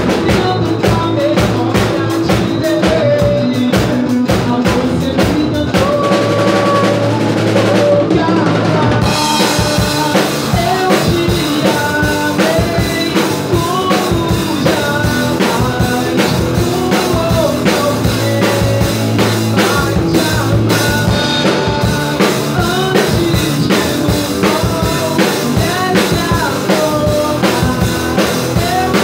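Rock band playing live: a drum kit keeps a steady beat on bass drum and snare under pitched guitar and bass lines. Cymbals come in about nine seconds in.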